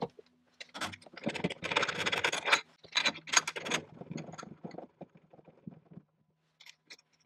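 Scraping, clinking and clicking of steel tooling being handled at a mill-drill, from an end mill being swapped in the spindle and work being moved in the vise. Dense for the first few seconds, then sparser, over a faint steady low hum.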